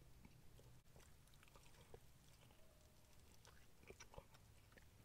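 Faint chewing of crispy fried chicken: soft, irregular wet mouth clicks, a little stronger about four seconds in.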